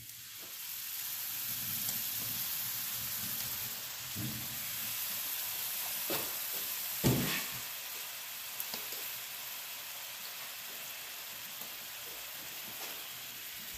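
Steaks sizzling steadily in hot oil in a cast iron skillet, the sizzle swelling over the first second or two as the last steak goes into the pan. A single sharp knock sounds about halfway through.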